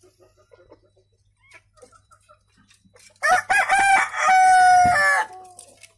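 Madura gaok rooster crowing once, about three seconds in: a short stepped opening, then a long held note that drops away at the end. Faint clucks and pecking before it.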